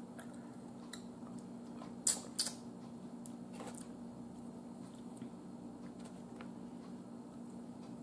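Close-up eating sounds of a person chewing smoked sausage: two short, sharp smacks about two seconds in and a few softer clicks, over a steady low hum.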